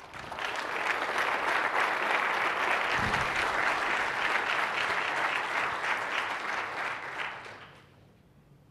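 Audience applauding, a dense clapping that fades out about seven to eight seconds in, with one low thump about three seconds in.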